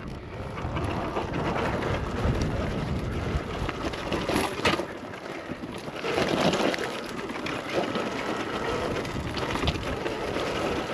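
Wind buffeting the microphone while an electric dirt bike climbs a rocky slope, its near-silent motor giving no clear whine; tyres and chassis clatter over the rocks, with a sharp knock about four and a half seconds in and another near the end.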